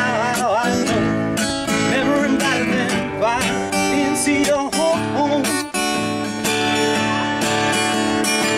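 Acoustic guitar strummed steadily, with a man's voice singing held notes that bend and waver over it.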